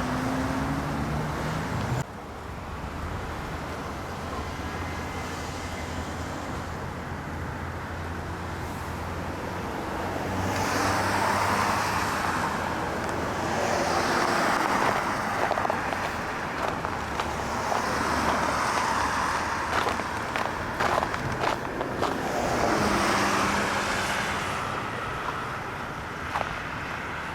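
Road traffic passing, cars swelling up and fading away one after another, with a few sharp clicks and cracks in the middle.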